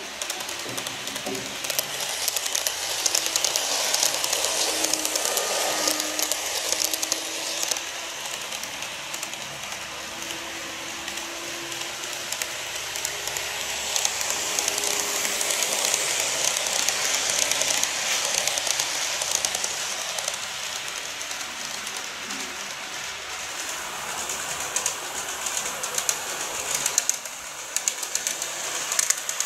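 KATO N-gauge 381 series model trains running along the layout's track: a steady rolling rattle of small wheels on rail with fine clicking. It swells twice as trains pass close by.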